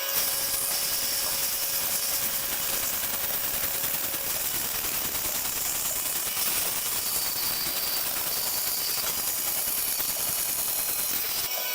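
A woodworking power tool running steadily, a dense even hiss with a faint steady tone under it for the first few seconds.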